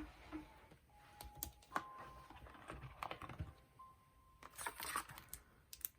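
Light, irregular clicks and soft rustles of a book and its packaging being handled as it is unwrapped and looked over.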